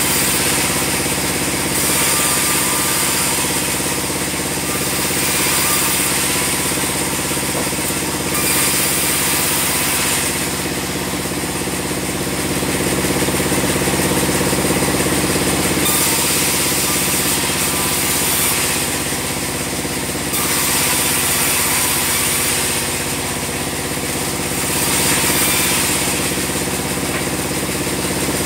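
Band sawmill running: a steady machine hum under a high hiss that swells and fades every few seconds.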